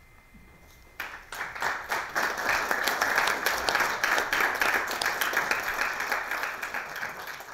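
Audience applauding at the end of a lecture, starting suddenly about a second in and tapering off near the end.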